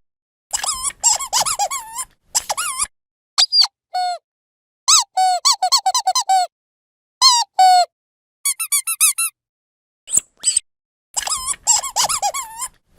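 Rubber squeaky dog toy squeezed repeatedly: quick runs of short, high-pitched squeaks whose pitch bends up and down, in bursts separated by brief silences.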